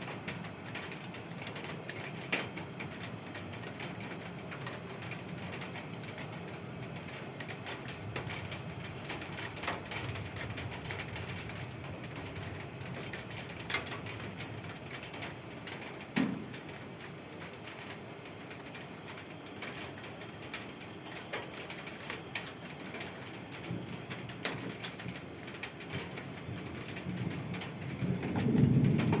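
Steady rain falling, with scattered sharp drips and taps on hard surfaces. A low rumble of thunder swells near the end.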